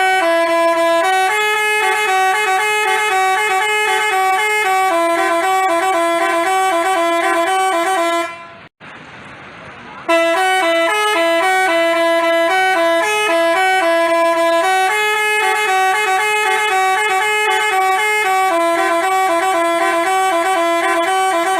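Basuri telolet bus horn, a multi-trumpet air horn, playing a jingle of stepped notes that switch back and forth between a few pitches. It sounds for about eight seconds, stops for about two seconds, then plays the tune again until the end.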